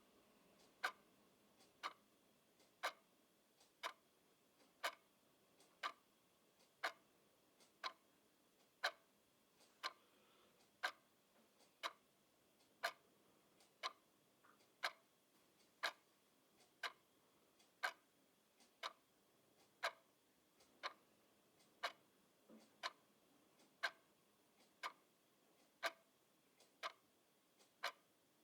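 Clock ticking steadily, about one tick a second, the ticks alternating in strength as a tick-tock.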